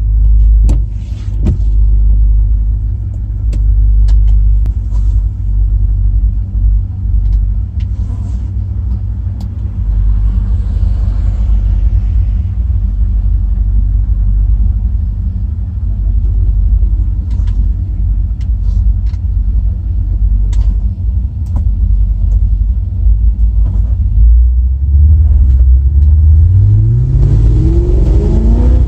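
Car engine running steadily at low revs, then accelerating hard in the last few seconds, its pitch climbing.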